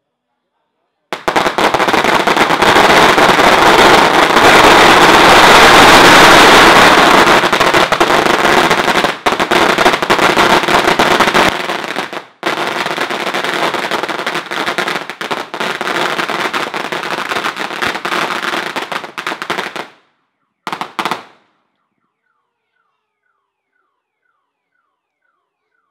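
A long hanging string of Chinese firecrackers going off in a rapid, continuous crackle of bangs, starting about a second in. It is loudest over the first ten seconds, drops a little after a brief break, stops about twenty seconds in, and a short last burst follows.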